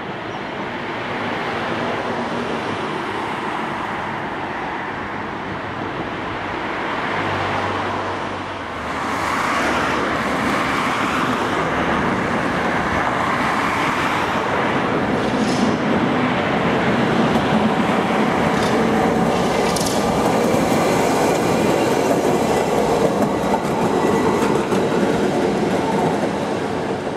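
W-class tram running along a street track, with steady rolling and motor noise mixed with road traffic. Two brief high squeals come past the middle.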